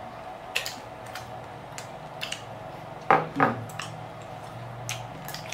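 Plastic chopsticks clicking and scraping against small ceramic bowls while eating, in scattered short taps. About three seconds in come two louder short sounds that fall in pitch.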